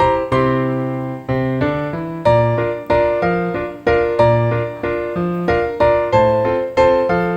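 Background music: piano playing chords and notes at a steady, moderate tempo.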